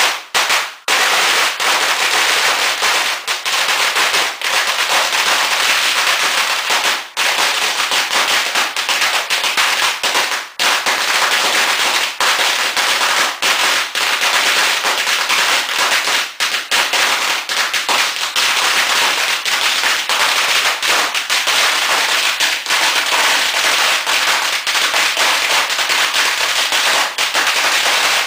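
A long roll of red firecrackers going off: a few sudden bangs, then a dense, unbroken rattle of rapid bangs that never lets up.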